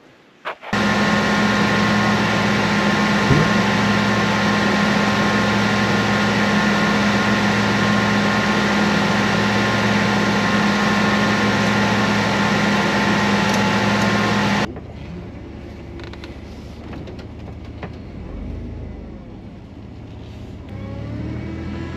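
1998 GMC Safari van's 4.3-litre V6 running at a steady, unchanging speed, loud and even. It starts abruptly about a second in, and about two-thirds of the way through it cuts suddenly to a quieter, lower running sound.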